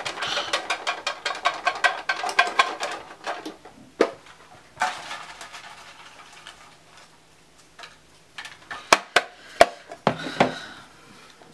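Folded paper slips rattling fast inside a small lidded cardboard box as it is shaken hard for about three seconds. Then the lid is opened and paper rustles as a slip is drawn out, with a few sharp clicks near the end.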